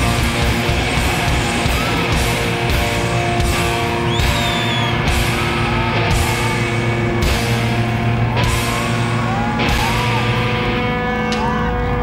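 Live rock band playing loudly: distorted electric guitar with long held notes over drums, with cymbal crashes about once a second.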